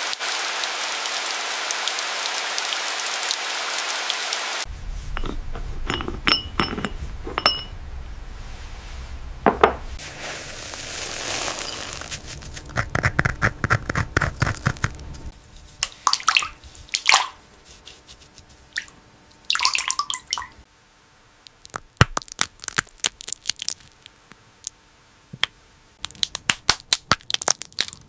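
Food-preparation handling sounds: a steady rushing hiss for about the first four and a half seconds, then a long run of sharp clicks, clinks and small cracks, with short bursts of rustling or pouring noise in between.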